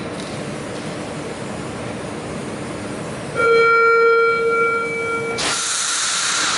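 Parked passenger train humming steadily, then about three and a half seconds in a loud steady warning tone lasting about two seconds. It is followed at once by a loud burst of air hiss.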